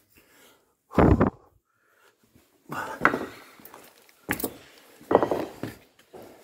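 Scuffs and knocks of boots and body on rock as someone clambers over a rough mine passage: four separate bursts of scraping and knocking, the loudest about a second in.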